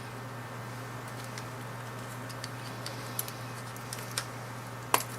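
Light plastic clicks and ticks from a Jaguar S-Type key fob's case being handled and prised apart, scattered through, with one sharper click just before the end, over a steady low hum.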